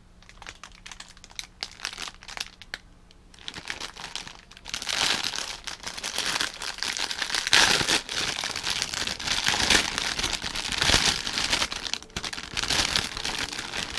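Plastic packaging being handled and crinkled as a parcel is opened: scattered light rustles at first, then continuous loud crinkling from about five seconds in.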